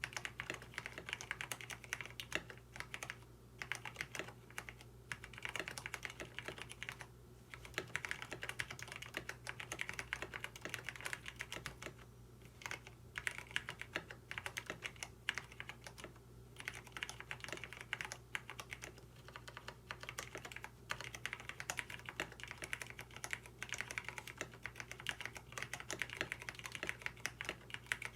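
Typing on a KBD67 Lite mechanical keyboard with lubed Cherry MX Brown tactile switches: a rapid run of key clacks with a few brief pauses. The owner finds these switches scratchy, with an annoying "tic" from the switch housings, which have no switch films.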